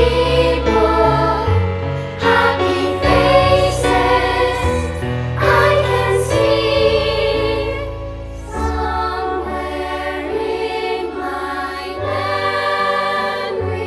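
A choir singing a holiday song with instrumental accompaniment, held notes over a bass line that moves every second or two.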